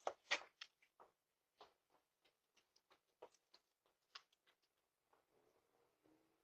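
Near silence with faint, irregular clicks and taps, most of them in the first second and thinning out after that.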